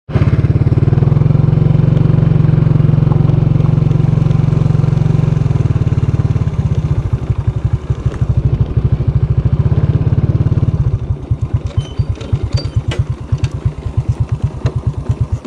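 Small motorcycle's engine running while riding, heard close up; about halfway through the exhaust beat slows into separate, uneven pulses as the rider eases off, with a few light rattles near the end.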